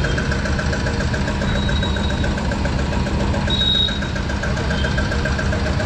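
A motor running steadily with a low hum and a regular pulse while petrol is pumped into a motorcycle's fuel tank.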